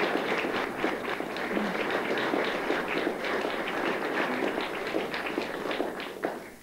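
An audience in a room applauding: a dense, steady patter of many hands clapping that stops abruptly near the end.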